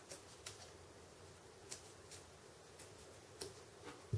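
Several faint, irregular snips of scissors cutting the corner off a hair arrow rest.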